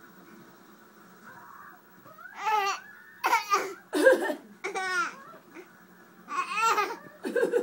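Laughter in about six short, high-pitched bursts with gaps between them, the first starting about two seconds in.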